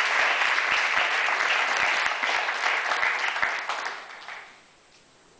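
Audience applauding in a concert hall, the clapping dying away about four seconds in.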